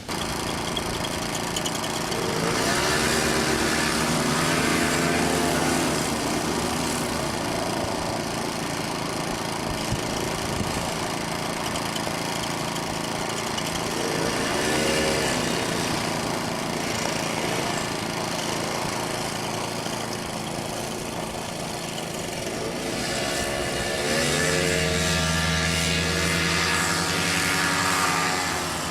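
Paramotor engine and propeller running steadily, with its pitch swelling and easing several times as the throttle is worked, over a steady rush of air noise.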